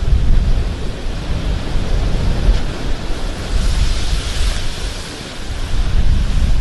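Wind buffeting the microphone, a low rumble under a steady rushing noise, with a hissing swell in the middle.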